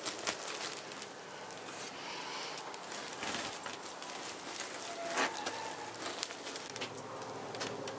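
Ash shaken from a scoop onto the embers at the bottom of a tandoor pit, giving an irregular scatter of soft ticks and pattering.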